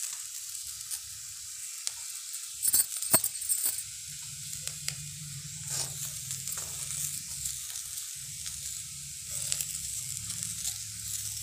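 Potato sticks and peanuts sizzling in ghee in a kadhai while a spatula stirs and scrapes through them, with the loudest scrapes against the pan about three seconds in.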